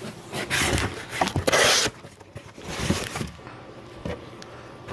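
Packaging being opened and handled: rough rustling and scraping in two spells, the first longer and louder, with a few sharp clicks.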